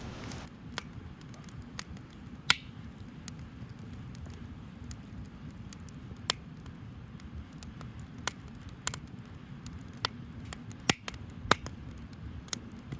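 Wood campfire crackling, with sharp irregular pops every second or so over a low steady rumble.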